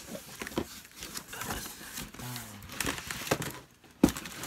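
Cardboard box and plastic-wrapped items being handled: rustling and crinkling of packaging with scattered small clicks, then a sharp knock about four seconds in.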